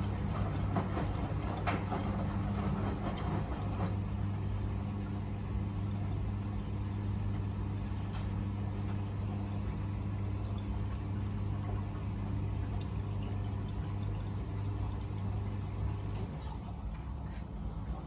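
Miele W Classic front-loading washing machine in its wash phase: a steady low motor hum, busier for the first few seconds, that cuts off about two seconds before the end as the drum stops turning.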